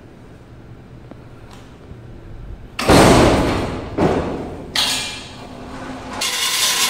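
A heavy thud about three seconds in as a computerized flat knitting machine is set down off a hand pallet jack, followed by two shorter metal knocks. Near the end comes a scraping rattle as the pallet jack is pulled out from under the machine.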